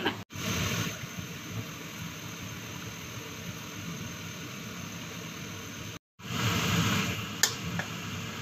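Steady rushing noise of a wok of soup boiling on the stove, with the kitchen range hood fan running. It drops out briefly twice, and near the end come a couple of light taps, like a spatula against the wok.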